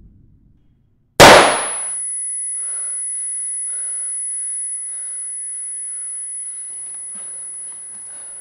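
A single loud pistol shot about a second in, followed by a steady high-pitched ringing tone that slowly fades.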